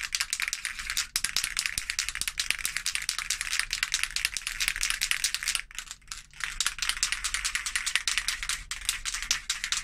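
An aerosol spray paint can being shaken, its mixing ball rattling fast and continuously, with a short pause a little after halfway. The paint is being mixed before spraying.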